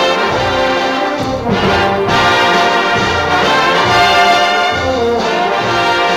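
Studio orchestra playing an instrumental passage led by brass, with trombones and trumpets over the full band. The recording is transferred from a 78 rpm shellac record.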